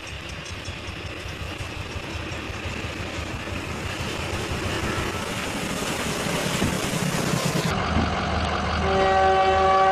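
A locomotive pushing a wedge snowplow approaches, its rumble and the rush of thrown snow growing steadily louder. Near the end a train horn blows a steady chord of several notes.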